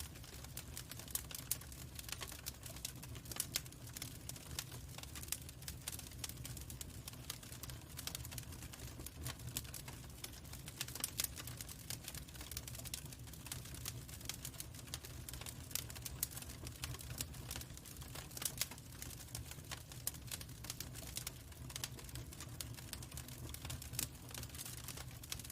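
Log fire crackling, with irregular sharp pops and snaps over a steady low rumble.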